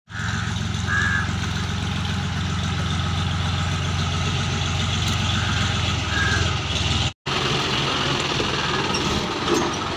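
Diesel tractor engines running steadily. The sound drops out for an instant about seven seconds in, then another tractor engine carries on close by.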